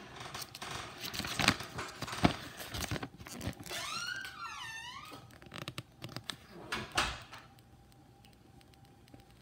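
Paper instruction sheet rustling and crackling as it is handled and turned, with several sharp crackles, settling down after about seven seconds. A brief squeaky chirp, rising and falling in pitch, about four seconds in.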